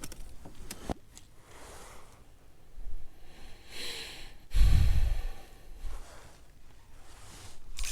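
A man breathing heavily close to the microphone, a few separate breaths and exhales, with one loud low rumble of air hitting the mic about halfway through.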